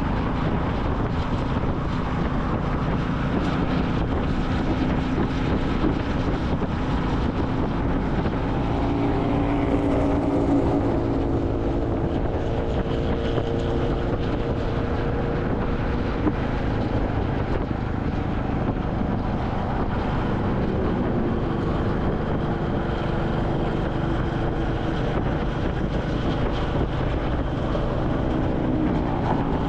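Royal Enfield Classic 350's single-cylinder engine running steadily while riding, with wind buffeting the microphone.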